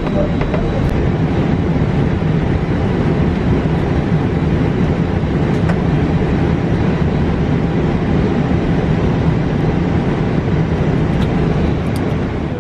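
Steady cabin noise on an Airbus A320 flight deck while it taxis on idle engines: a loud, even rumble and hiss with a faint high whine.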